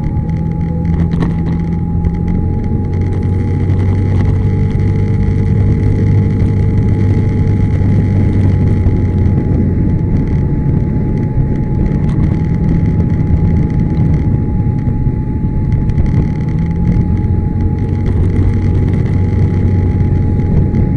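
Yamaha SMAX scooter running under way, its single-cylinder engine giving a steady low drone that rises and falls gently. A thin steady high tone sits over it throughout. This hum is the kind of abnormal noise the owner is documenting.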